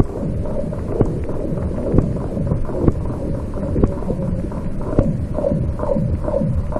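Tent pegs being hammered into thin lake ice, heard underwater: sharp knocks, the loudest about once a second with many fainter ones between, some ringing with a falling pitch, over a steady low rumble. This is the noise that carries through the water and scatters the fish under the ice.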